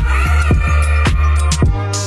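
Background music with a deep bass and a steady drum beat.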